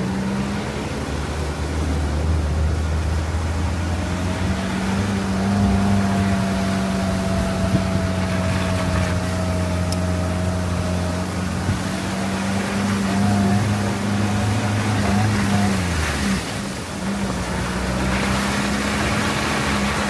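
Force Gurkha's diesel engine running steadily under way, heard from inside the cabin, with road and tyre noise. About sixteen seconds in the engine note dips and wavers briefly, then settles again.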